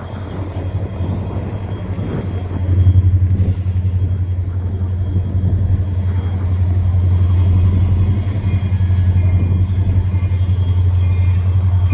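Low, steady rumble of an approaching train's diesel locomotives, swelling about three seconds in and holding.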